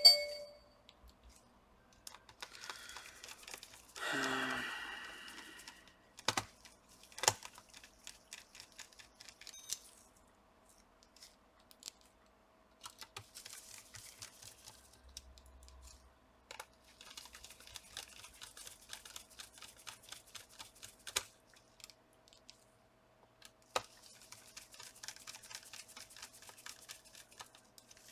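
Laptop cooling fan being fitted back and screwed down with a small precision screwdriver: several stretches of fine, rapid clicking from the bit turning in the tiny screws, a louder rasp of the part being seated about four seconds in, and a few sharp clicks of plastic and metal parts.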